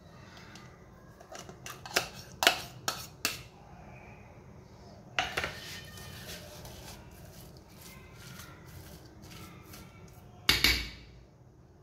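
Metal spoon clinking and scraping against a ceramic bowl while mixing a soft minced kabab mixture: a quick run of sharp clinks about two seconds in, a scrape about five seconds in, and one loud knock near the end.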